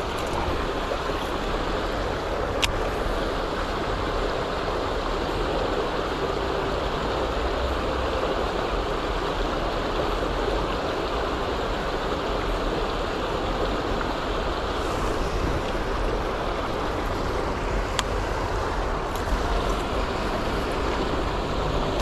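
Strong wind rushing steadily, buffeting the microphone with a low rumble. Two faint clicks come through, one a few seconds in and one near the end.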